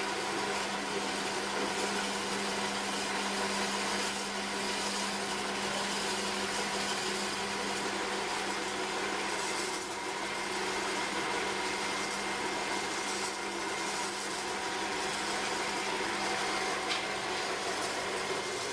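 Potter's wheel running with a steady motor hum while wet clay is pressed down and centered by hand on the spinning wheel head.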